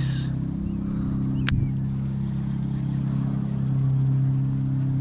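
A motor running with a steady low hum of several pitches, and one sharp click about a second and a half in.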